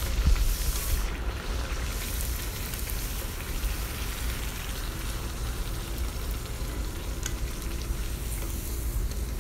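Rice pathiri deep-frying in hot sunflower oil in a kadai: a steady sizzle and crackle of bubbling oil as the slotted spoon presses the bread down so it puffs.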